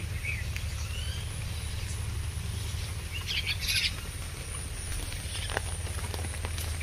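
Birds chirping: a few short high calls near the start and a brighter burst of calls about halfway through, over a steady low rumble.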